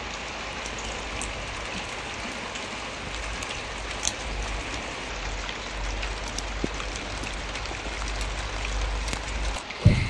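Steady rain falling on garden plants and paving, with scattered ticks of single drops. A low rumble runs underneath and stops just before a thump at the very end.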